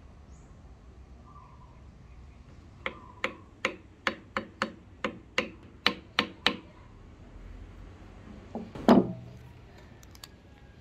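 A hammer knocking a wedge down into the eye of an axe head to lock in its ebony handle: about a dozen sharp knocks, roughly three a second. A single louder, heavier thump follows about two seconds later.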